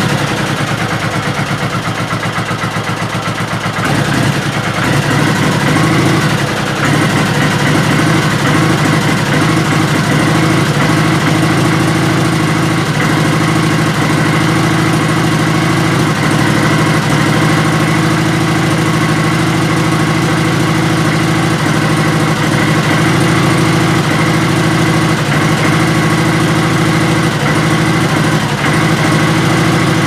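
V-twin cruiser motorcycle engine idling steadily without revving, a little louder from about four seconds in. This is the running fault the owner is still tracing, which others have put down to fuel, the ignition coil or the regulator.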